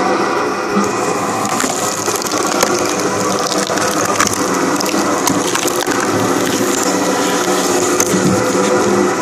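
Screw cone log splitter running steadily, its threaded steel cone boring into a birch log with repeated sharp cracking and splintering as the wood tears, until the log splits apart near the end.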